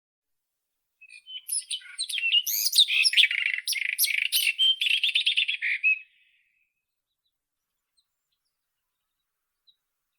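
White-throated robin (Irania gutturalis) singing one song phrase: a fast run of varied, quickly changing notes lasting about five seconds, starting about a second in.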